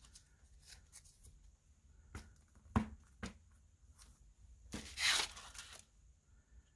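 Clear acrylic stamp block knocking lightly against a ink pad while the stamp is inked: a few light taps between two and three seconds in, the sharpest near three seconds, then a short papery rustle about five seconds in as it is handled over the paper.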